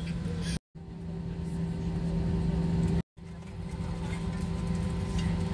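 Steady hum inside an Airbus A320 passenger cabin on the ground, with a few clear steady tones running through it: the air conditioning and aircraft systems running. The sound cuts out sharply twice, at about half a second and three seconds in, and fades back up each time.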